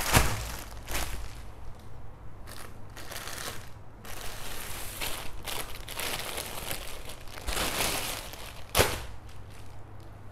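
Clear plastic bags crinkling and rustling in irregular bursts as shoes are pulled out of their wrapping, with a sharp crackle right at the start and another about nine seconds in.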